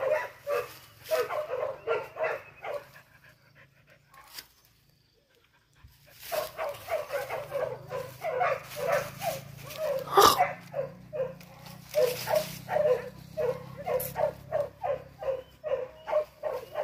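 Hunting dog barking in quick, repeated barks, two or three a second. The barking breaks off for a few seconds near the start and then resumes steadily, with a single sharp click about ten seconds in.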